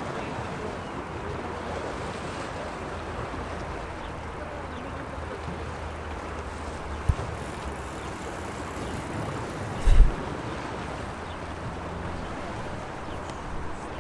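Sea waves washing against the shore: a steady rush of surf. A short sharp knock comes about seven seconds in, and a louder brief low thump about ten seconds in.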